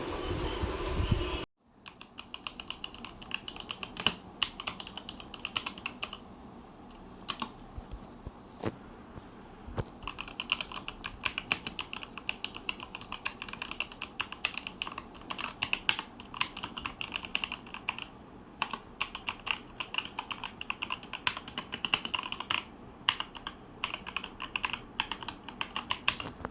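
Typing on a Langtu GK65 hot-swap mechanical keyboard: fast runs of key clicks, thinning to a few scattered strokes for a few seconds near the middle. It is preceded by a louder, different noise that cuts off suddenly about a second and a half in.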